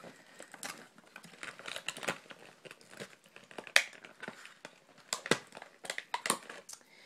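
Crinkling and clicking of a plastic-and-cardboard toy box being handled as its plastic insert and tabs are worked loose. There are irregular sharp clicks, the loudest about four seconds in and another just after five seconds.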